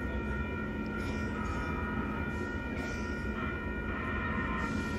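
Railroad crossing warning bells ringing continuously, over a low rumble.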